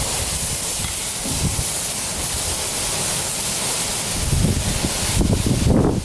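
Jerk-marinated oxtails sizzling steadily as they sear over the hot firebox of a smoker, with some low bumps from about four seconds in.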